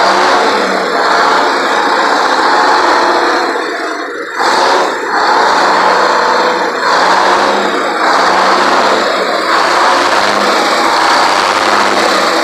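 Supercharged GM Detroit Diesel inline six-cylinder two-stroke engine of a 1954 LeTourneau-Westinghouse Tournarocker running loudly and steadily, easing off briefly about four seconds in and then picking up again.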